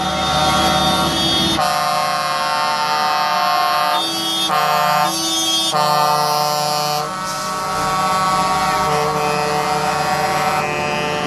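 Truck air horns sounding without a break, several tones at once, with the chord changing pitch every second or two, over the low rumble of diesel trucks driving past.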